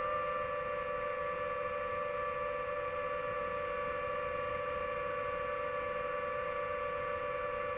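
DJI FPV drone's motors and propellers hovering: a steady whine that holds one pitch throughout.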